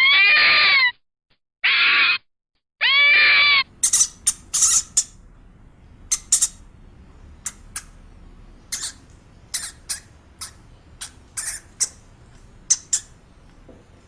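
Animal calls: three loud, drawn-out cries with an arching pitch, then, about four seconds in, a run of quick, high, irregular squeaks or chirps.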